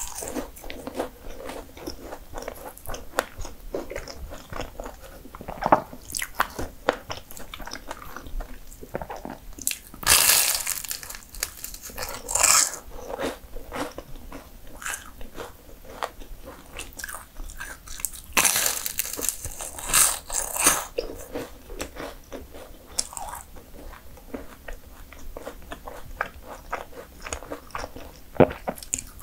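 Close-miked biting and chewing of flaky mini puff pastries, the crisp layers crunching and crackling. There are louder spells of crunching about ten seconds in and again around eighteen to twenty-one seconds in.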